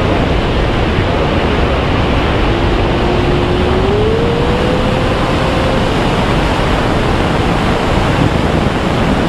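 Wind rushing over the camera's microphone during a tandem parachute descent under an open canopy: a loud, steady rush of noise. A faint thin tone rises in pitch for a few seconds about midway.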